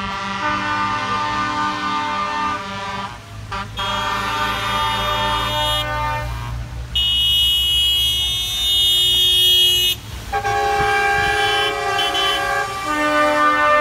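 Truck air horns sounding in long, overlapping blasts as a convoy of trucks drives past, with a shriller horn held for a few seconds in the middle and diesel engine rumble underneath.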